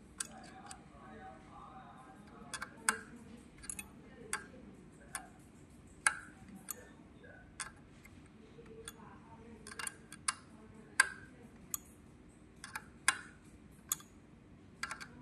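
Irregular sharp clicks and light knocks, roughly one a second, from hands connecting air tubes to an air leak tester's test-fixture port.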